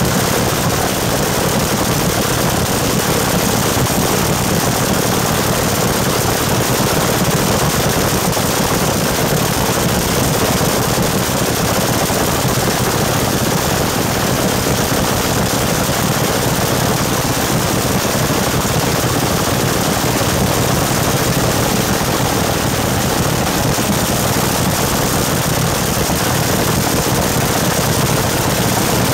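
Dragster engine running steadily through open exhaust headers, a loud, rapid, crackling rumble that holds an even pitch with no revving.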